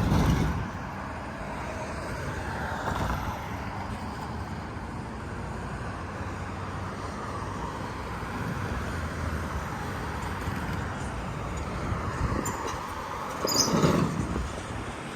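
Outdoor rush of wind and road traffic, steady throughout, with louder swells right at the start and again near the end.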